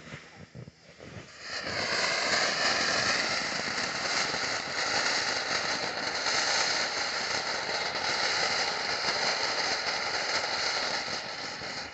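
Firework fountain catches about a second and a half in, then sprays sparks with a steady, loud hiss.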